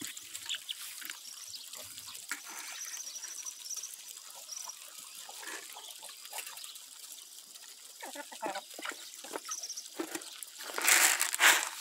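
A flock of chickens pecking corn kernels off bare dirt: many small, irregular taps and clicks, with a few faint high chirps a few seconds in and a louder scuffle near the end.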